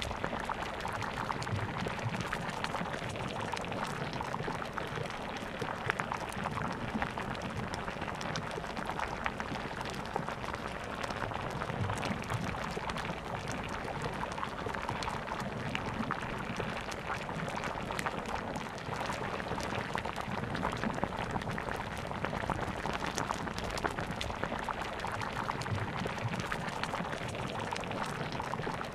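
Coconut cream simmering in a pan with sliced green papaya: a steady bubbling with many small crackles and pops.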